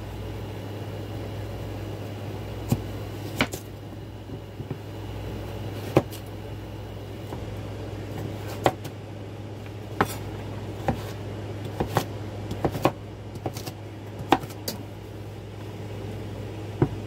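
Cleaver chopping sweet potato on a wooden cutting board: irregular sharp knocks, roughly one a second, over a steady low hum.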